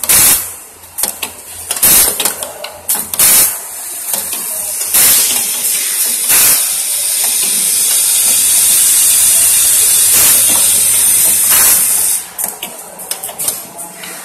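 Automatic micro USB soldering machine running, its pneumatic cylinders and valves giving short, sharp hisses of air roughly every one to two seconds. Through the middle a steady high hiss of air builds and holds for several seconds, then the short hisses return near the end.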